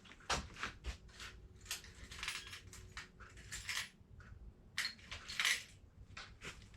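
Small metal tools and parts being handled: light, irregular clicks, clinks and rattles, a little louder about five seconds in.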